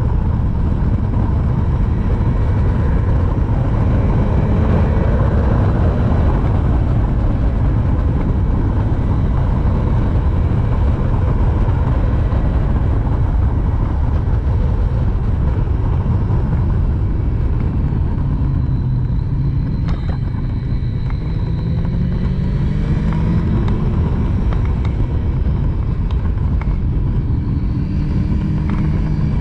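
Triumph Street Triple's three-cylinder engine under way, its pitch rising and falling with throttle and gear changes through the corners, over a heavy rush of wind on the microphone.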